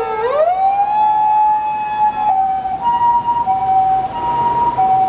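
Japanese ambulance running several sirens at once during emergency driving. A wailing siren bottoms out, sweeps back up within the first second and then holds steady, while a two-tone hi-lo siren alternates between its two notes.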